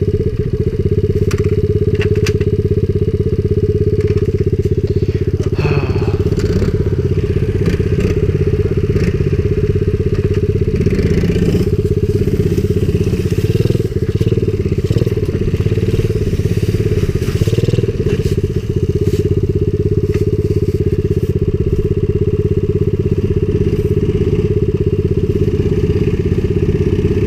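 Small four-stroke single-cylinder pit bike engine running steadily as the bike is ridden along a trail, with a few short cracks and knocks from brush under the wheels, the first ones a second or two in.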